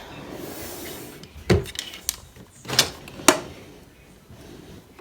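A drawer of an IKEA Alex drawer unit sliding open with a soft rush. Three sharp knocks follow over the next two seconds, the last two close together and the loudest.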